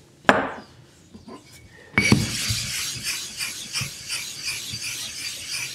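A single knock near the start, then, from about two seconds in, gritty rhythmic scrubbing at about three strokes a second on the wet surface of an Imanishi Combo 1000/6000 whetstone, opening the stone's surface so the water soaks in.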